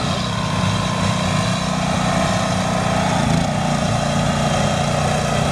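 Chainsaws running steadily while wood is carved, with a slight rise in engine pitch about three seconds in.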